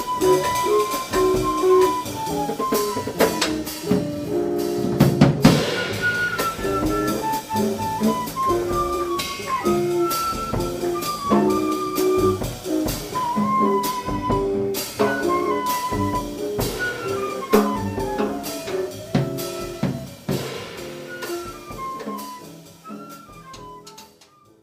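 Small jazz group playing a tune: a single melody line over guitar, bass and drum kit, with a loud cymbal crash about five seconds in. The music fades out over the last few seconds.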